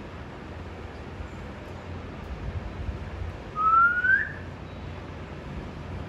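A green parakeet gives one short rising whistle about three and a half seconds in, over a steady low background rumble.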